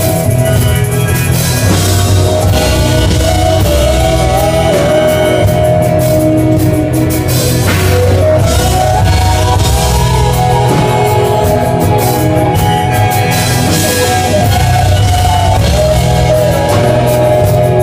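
Rock band playing live: drum kit and guitars, with a lead melody sliding in pitch over a steady beat.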